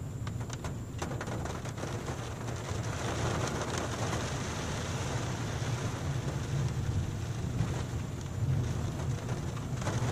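Rain falling on a car, heard from inside the cabin, with scattered sharp drop ticks at first and the rain hiss filling out a few seconds in. A steady low rumble runs underneath.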